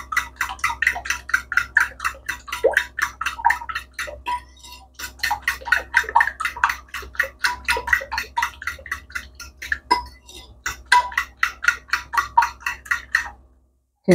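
A metal fork beating eggs and water in a ceramic bowl, clicking against the bowl about six times a second, with two short pauses, and stopping shortly before the end.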